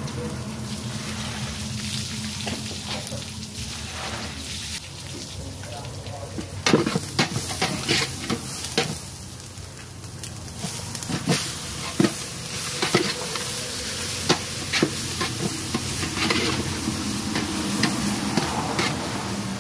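Food sizzling in a large aluminium stockpot as a metal ladle stir-fries it. From about a third of the way in, the ladle knocks and scrapes against the pot in a run of sharp strokes.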